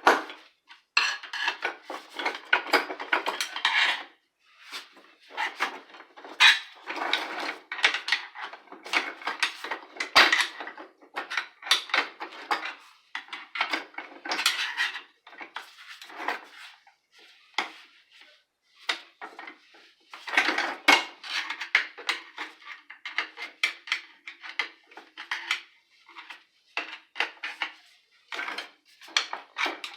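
Metal parts of an aluminum floor jack clinking and clattering against each other and the work surface as the jack is taken apart by hand, in irregular bursts of short knocks with brief pauses.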